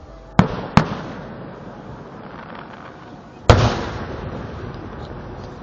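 Fireworks shells bursting: two sharp booms close together near the start and a third about three and a half seconds in, each followed by a rolling rumble that dies away.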